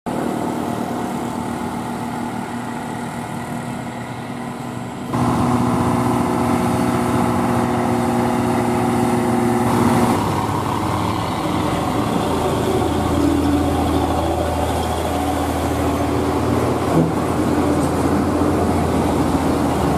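Heavy diesel truck engines running steadily. The sound jumps abruptly louder about five seconds in and changes again about ten seconds in.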